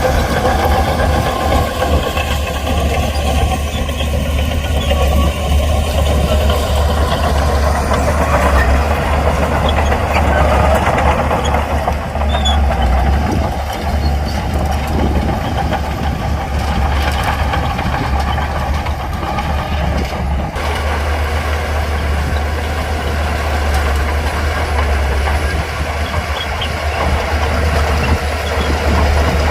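Heavy earthmoving machine's diesel engine running steadily with a deep, even drone.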